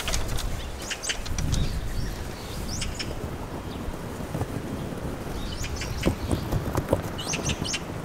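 Wind rumbling on the microphone, with short, high bird chirps scattered through it.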